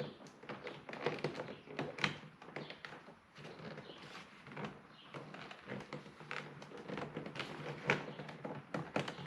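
Irregular light clicks, taps and knocks of plastic door trim being handled and worked loose from a car door, the sharpest about two seconds in and again near the end, over a faint steady hum.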